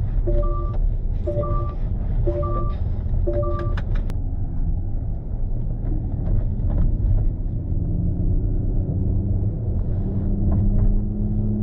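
Smart #1 Brabus seatbelt reminder chime, a multi-tone beep about once a second, stops about four seconds in. Then the car's synthesized electric-drive sound, played through its speaker, rises in pitch as the car accelerates and levels off near the end, over road rumble in the cabin.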